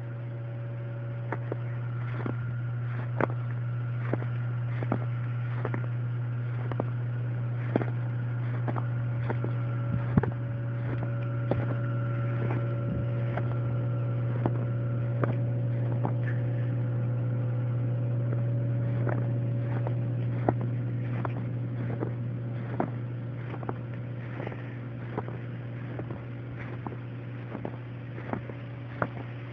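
A steady low motor-like hum with faint steady higher tones above it, and many sharp cracks and snaps scattered irregularly throughout.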